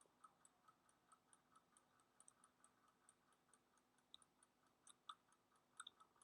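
Near silence with faint, rapid, even ticking, about four ticks a second, and a few slightly louder clicks in the second half.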